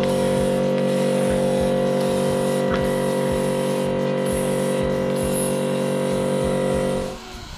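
Compressed-air gravity-feed paint spray gun hissing as paint is sprayed, with several short breaks in the hiss between passes, over a steady machine hum. Both stop abruptly about seven seconds in.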